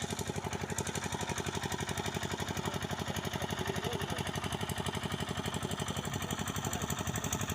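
An engine running steadily with a fast, even pulsing.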